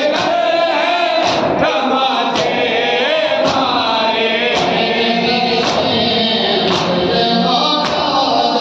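Men's voices singing a noha, a Shia lament, in chorus, over sharp unison chest-beating strikes (matam) about once a second.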